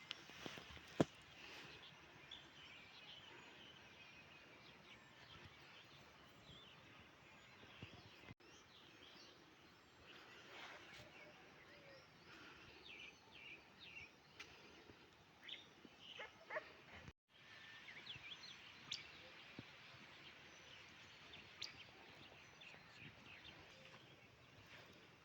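Faint rural ambience with scattered short bird chirps throughout and a sharp click about a second in; the sound drops out briefly twice.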